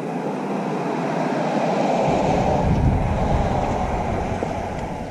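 Loud rushing noise that swells toward the middle and eases off, with wind rumbling and buffeting on the microphone from about two seconds in.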